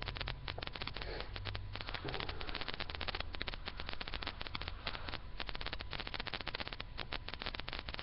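Teleconference line noise: a dense, steady crackle of tiny clicks over a low hum.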